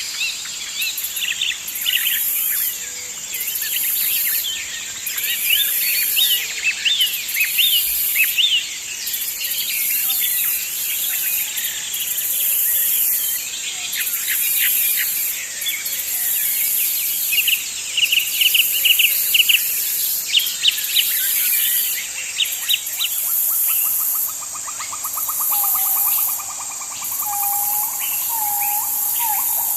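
Forest ambience: many birds chirping and singing over a steady high-pitched insect drone, with a higher insect buzz that pulses on and off every second or two. Past the middle, a lower trilling call and a run of short repeated notes join in.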